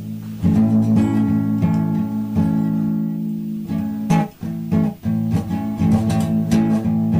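Guitar strumming chords as the intro of a live song arranged in a country-blues style, with a fresh strum roughly every second.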